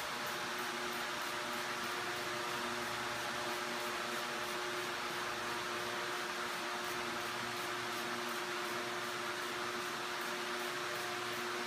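Electric fan running steadily with a hum and a whoosh of moving air, over quick, evenly repeated squirts of a hand-pumped spray bottle wetting down a cloth.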